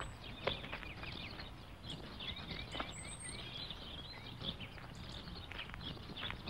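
Faint birds chirping repeatedly over a low, steady outdoor background noise, with a couple of brief clicks.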